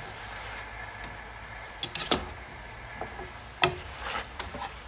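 A slotted metal spoon stirring chicken and chunks of green papaya in a metal pot, knocking and scraping against the pot in a few sharp clacks, a cluster about two seconds in and a louder one about three and a half seconds in.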